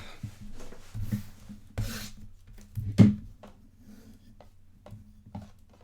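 Cards and packaging being handled on a tabletop: light rubbing and rustling with scattered clicks and knocks, the loudest knock about three seconds in.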